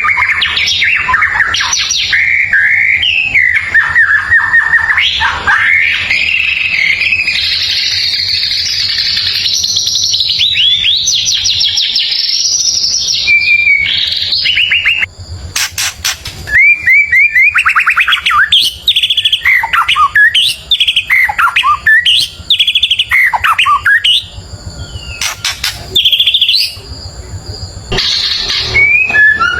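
White-rumped shama singing a long, varied song of rapid trills, sweeping whistles and chattering phrases. About halfway through it breaks off briefly, with a couple of sharp clicks, then resumes.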